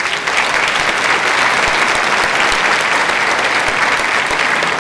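Audience applauding: many hands clapping in a dense, even clatter that holds loud and steady.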